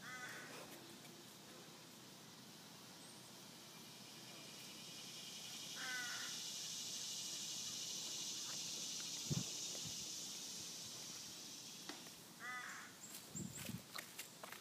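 A crow cawing in short runs, three times, over a steady high drone of insects that swells in the middle. Footsteps on the dirt trail thump near the end.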